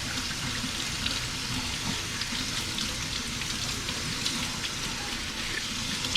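Kitchen tap running into the sink while a dish is washed, a steady rush of water with small clatters, and steak and onions sizzling in the pan underneath.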